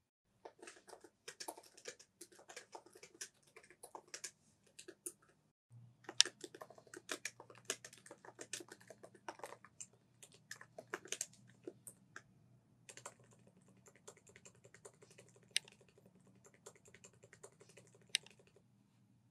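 Typing on a MacBook laptop keyboard: quick runs of key clicks in three bursts with short pauses between them, and a couple of sharper single key presses near the end.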